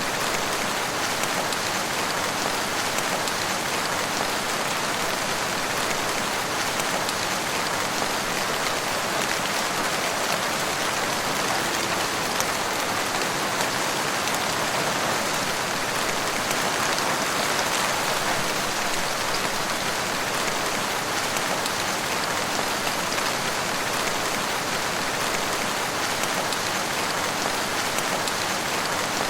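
Steady rain falling in a forest, an even hiss with fine scattered drop ticks on leaves and surfaces.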